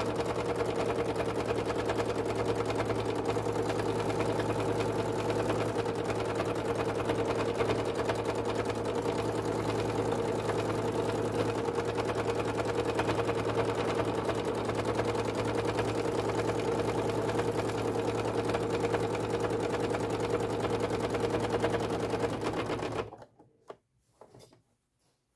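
Domestic sewing machine running fast and steady, needle stitching in free-motion thread painting. It cuts off suddenly near the end, leaving near silence with a few faint clicks.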